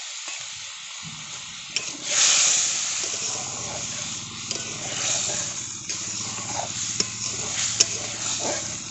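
Spice masala sizzling in hot oil in a metal karai with water just added, the gravy coming to a boil. It is stirred with a metal spatula that scrapes and clicks against the pan. The sizzle swells loudest about two seconds in.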